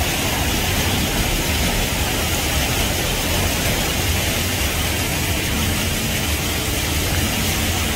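Water rushing and churning without a break, an even noise with a deep rumble underneath.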